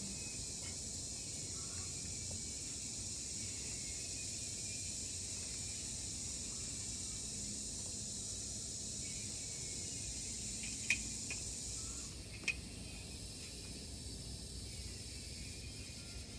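Steady high-pitched drone of insects, which drops a little about three-quarters of the way through. Two sharp clicks stand out about a second and a half apart and are the loudest sounds.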